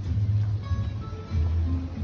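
Background music with a deep bass line that changes note about every second, and thin melodic notes above it.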